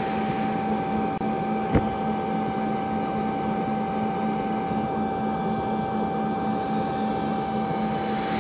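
TIG welding arc running steadily during a fill pass on a chrome-moly pipe joint: a steady buzzing hum with a constant high whine over it. A single sharp click comes a little under two seconds in.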